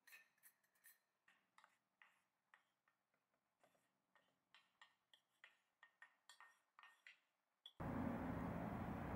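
Wooden spoon tapping and clinking softly against a glass jug and a honey jar, a string of light irregular clicks as honey is spooned into water and stirred. Near the end a steady, louder noise with a low hum starts suddenly.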